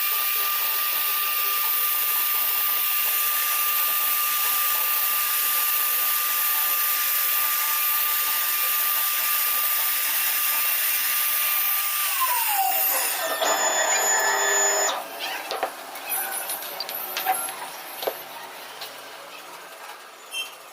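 A 1325 CNC router's spindle running with a steady high whine and hiss, which winds down in pitch and stops about twelve seconds in. After that come a short, louder stretch of steady tones and then scattered clicks and knocks.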